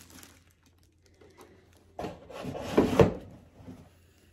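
Cardboard packaging scraping and rubbing as a coffee maker is handled in its box. The sound starts about two seconds in and ends in a louder knock about a second later.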